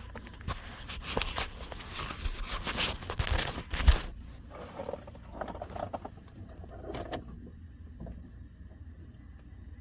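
Handling noise from the phone being set down: rustling and scraping, a sharp knock about four seconds in, then a few lighter clicks before it goes quiet.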